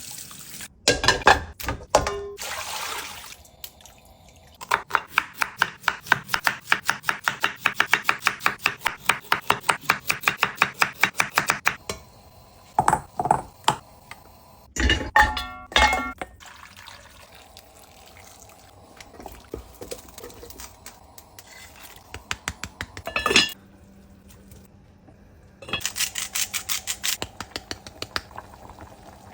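Kitchen work: a knife chopping quickly on a cutting board, about six strokes a second in a long run and again briefly near the end, with scattered knocks and clatter of dishes and pans in between.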